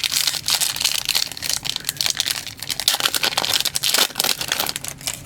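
Foil trading-card packs being torn open and crinkled by hand: dense crackling and rustling of the wrappers that stops near the end.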